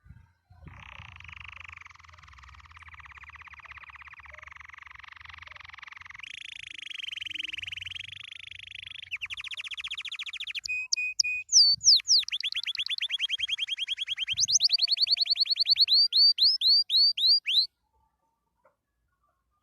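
Domestic canary singing one long song made of successive trilled phrases, each a rapid run of the same note repeated many times. The later phrases are louder and higher, with slower sweeping notes, and the song stops abruptly near the end.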